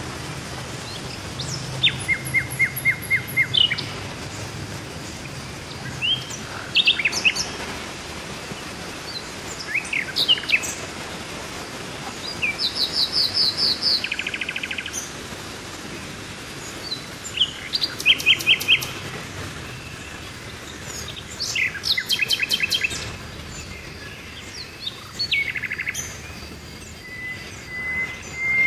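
Several birds calling throughout: short chirps, fast trills and runs of quickly repeated notes, over a steady outdoor background hiss.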